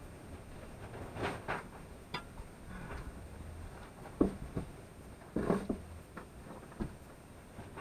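Irregular scuffs, scrapes and knocks of a person crawling over dirt and debris in a crawl space under a house. The sharpest knocks come about four seconds in and again about a second later.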